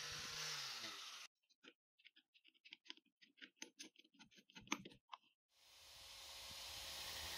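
Angle grinder running down with its pitch falling, then a run of small irregular clicks and taps as a diamond core bit on its adapter is handled on the grinder. About two seconds before the end, the grinder starts and runs up to a steady whir as the core bit goes onto a granite countertop.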